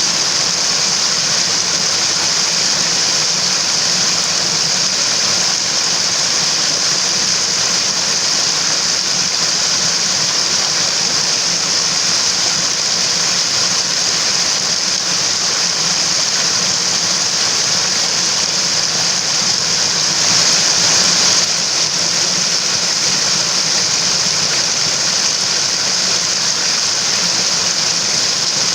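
Mountain stream water rushing steadily, swelling slightly about twenty seconds in.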